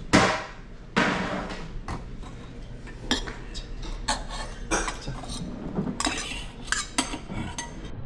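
Metal spoons and chopsticks clinking and knocking against bowls during a meal. There are two louder knocks in the first second, then scattered lighter clinks.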